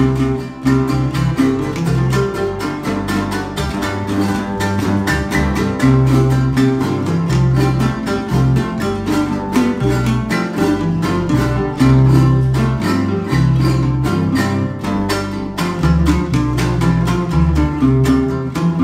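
Son jarocho music played live: jaranas strummed in a quick, steady rhythm over an electric bass line.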